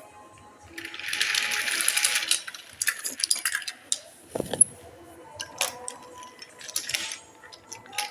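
Clicks and rattles of toy trains being handled or run on track, with a short burst of hissing a second in and a low thump about halfway.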